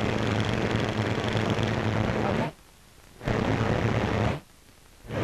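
Steady low rumble with hiss on an old newsreel soundtrack, dropping out abruptly twice for most of a second each.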